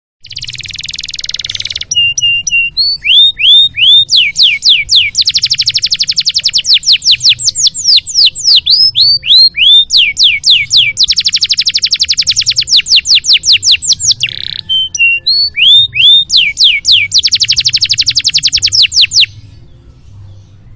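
Domestic canary singing a long song: a buzzy opening note, then runs of falling whistled notes alternating with long, very rapid rattling trills, stopping shortly before the end.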